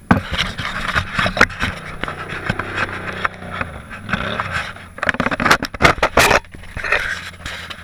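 Close handling noise on the camera: rubbing, scraping and sharp knocks as it is gripped and moved, with a quad (ATV) engine idling steadily underneath.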